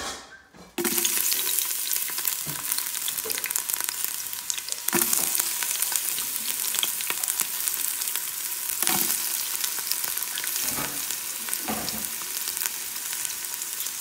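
Sliced onion hits hot oil in a stainless steel pot and starts to sizzle loudly, suddenly, about a second in. The oil then keeps sizzling steadily, with a few knocks against the pot.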